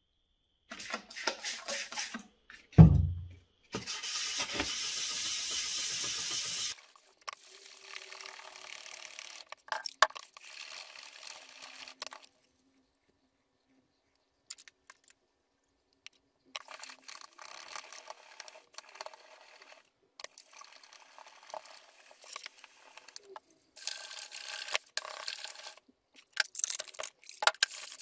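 Workshop handling sounds: clicks, a heavy knock about three seconds in, and a few seconds of steady hiss. From the middle on, a small metal part of a Bosch warm-up regulator is rubbed in short strokes on wet sandpaper, and the strokes get louder near the end.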